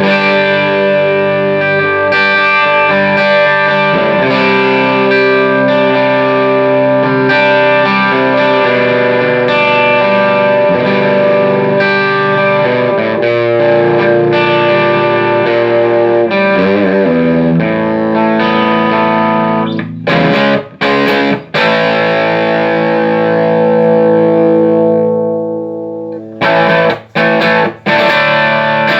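Electric guitar played through a Fender '57 Custom "Tweed" tube amplifier running on new Mallory coupling capacitors, in a sound test after the repair. It plays sustained, ringing chords and notes, with several short, abrupt stops in the last third.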